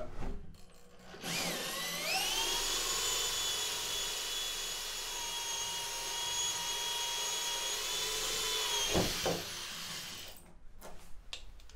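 Corded electric drill with a hole saw cutting into the wall of a plastic 55-gallon drum. The motor whine rises as it spins up about a second in, holds a steady pitch for about six seconds, then falls away near the end.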